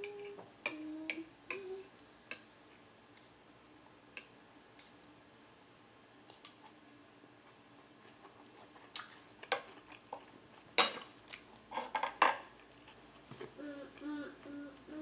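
A metal spoon and fork clink and scrape against small glass bowls in scattered taps, with a few louder clinks in the latter half. A short closed-mouth hum comes near the end.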